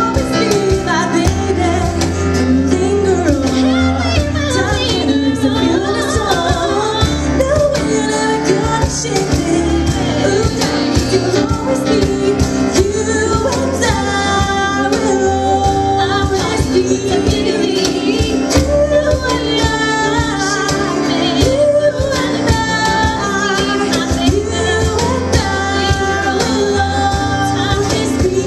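Live acoustic pop song: female vocals over a strummed acoustic guitar and a keyboard holding low sustained notes.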